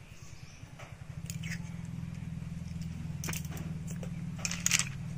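A few short, sharp clicks of snail shells knocking against each other and the plastic basket as they are handled, over a steady low hum that sets in about a second in.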